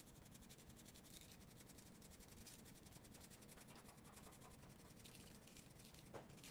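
Faint rattle and patter of seasoning shaken from a shaker can onto raw tuna steaks, in quick even shakes.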